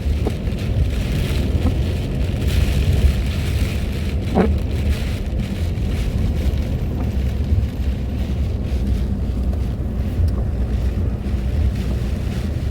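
Car driving on a wet road in the rain: steady low rumble of engine and tyres under a hiss of rain and road spray, with one brief squeak about four seconds in.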